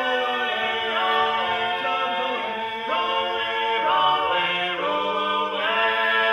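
Male barbershop quartet singing a cappella in four-part close harmony, holding long sustained chords that shift together about once a second.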